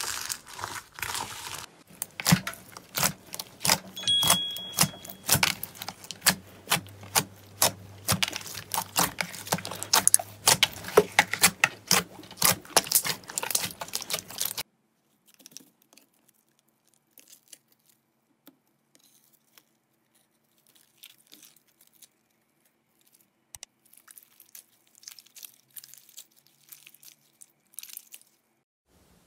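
Hands squeezing and kneading slime, first foam-bead slime: a dense run of sharp crackles and pops. About halfway through it drops suddenly to faint, scattered clicks and squishes.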